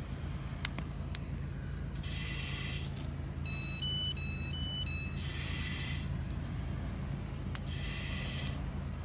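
Breaths drawn through a firefighter's SCBA mask, the demand regulator hissing on each one about every two and a half seconds, over a steady low rumble. About halfway through, a short tune of electronic beeps sounds once, like a phone alert.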